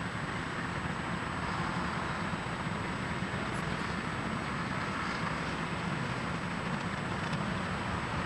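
Two SNCF BB 66000 diesel-electric locomotives idling at a standstill: a steady low engine rumble.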